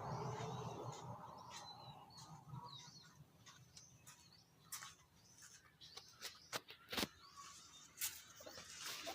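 Faint bird chirps, with a vehicle fading away at the start and a few sharp clicks in the second half.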